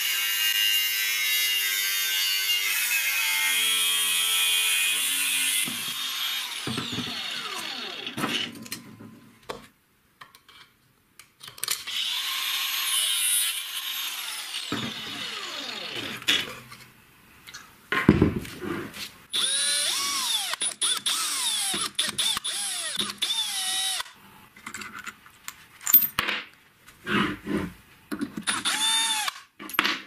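Power tool running in several separate bursts with short pauses between them, its pitch dropping off as it winds down after some of the bursts.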